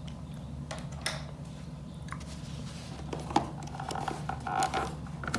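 Hands handling a Roland SPD-SX sampling pad's casing: scattered light clicks and scrapes, with a brief rubbing scrape about four and a half seconds in, over a steady low hum.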